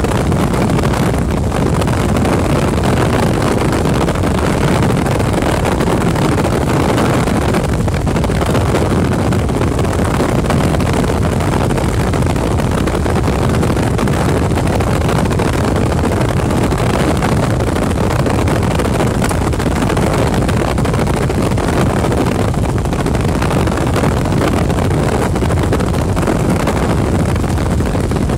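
Helicopter in flight heard from inside the cabin: a loud, steady drone of engine and rotor with no letup.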